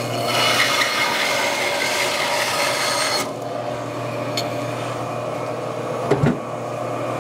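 Benchtop bandsaw blade cutting through the edge of a wooden log slab for about three seconds, trimming off the sapwood, then stopping; the motor hums steadily throughout. A short knock comes about six seconds in.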